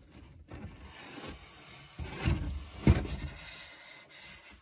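Polystyrene foam incubator lid rubbing and scraping as it is shifted, with two soft knocks about two and three seconds in.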